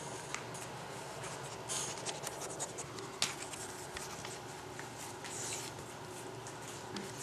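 Rottweiler's claws clicking and scraping on a wooden floor as it paws at a lemon half, in irregular scratchy taps with one sharp tap about three seconds in.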